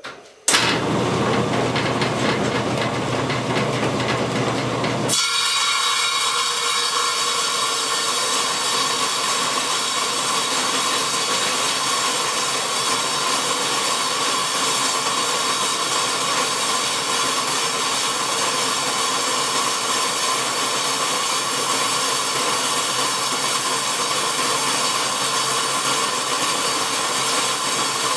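Table saw converted for metal, with a 1725 RPM motor and pulleys slowing its 10-inch Oshlun metal-cutting blade to about 1300 RPM, dry-cutting thick steel plate. The cut runs steadily, and about five seconds in the sound changes to a steady grind with several held tones.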